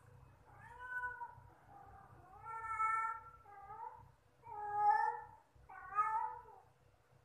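A domestic cat meowing: about five separate meows, each under a second long, the loudest about five seconds in.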